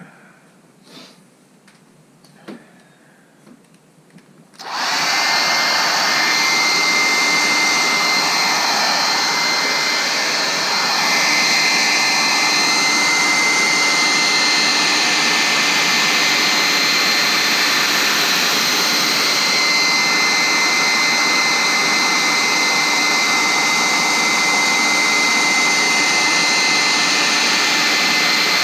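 A few faint clicks and handling sounds, then about five seconds in a hair dryer switches on and runs steadily, a loud rushing of air with a thin high whine. It is blowing hot air on a touchscreen's plastic bezel to soften the adhesive.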